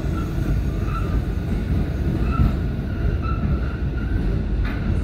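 Elevated subway train running along the track: a steady, heavy rumble of wheels and car.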